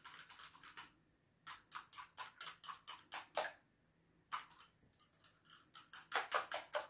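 Wire whisk beating an egg-white mixture in a small bowl: quick, even clinking strokes against the bowl, about four or five a second. The whisking pauses briefly twice.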